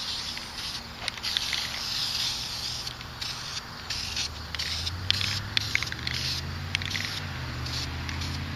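Aerosol spray-paint can hissing in a series of short bursts with brief pauses between them. A low steady hum comes in about halfway through.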